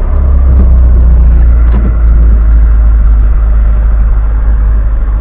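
VAZ-2106 four-cylinder carburettor engine running at a steady fast idle of about 2000 rpm, warming up just after a cold start, heard from inside the cabin.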